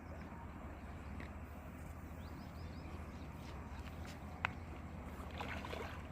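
Faint steady outdoor background noise with a few faint short chirps, and a single sharp click about four and a half seconds in.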